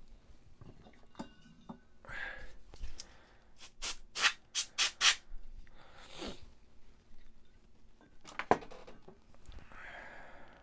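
Can of compressed air duster sprayed in about five quick short blasts, then one longer hiss, blowing off the work area. A single sharp knock comes near the end.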